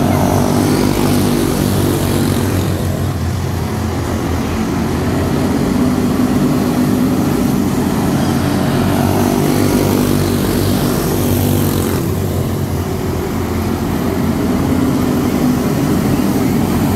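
A field of quarter midget race cars with Briggs & Stratton Animal single-cylinder engines running together in a pack, a steady buzz of many small engines that swells and eases a little as the pack circles the track.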